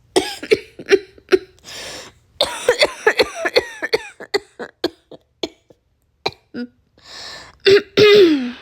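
Coughing from illness: runs of short, harsh coughs in quick succession, thinning to single coughs in the middle, then two of the loudest near the end, the last trailing off with a falling voiced sound.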